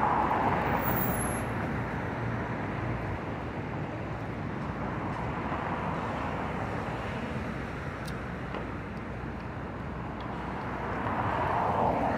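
Street traffic: cars passing, with one going by at the start and another coming up near the end.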